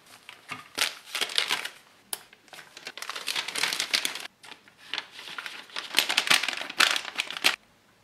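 Thin plastic of an MRE flameless ration heater bag being handled and unfolded, crinkling in irregular bursts that stop suddenly about seven and a half seconds in.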